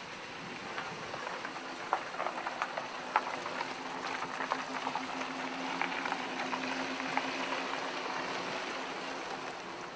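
Pickup truck rolling slowly past on a wet, slushy road: a steady engine hum under the hiss and crackle of tyres through slush and water. It grows louder toward the middle and eases off near the end.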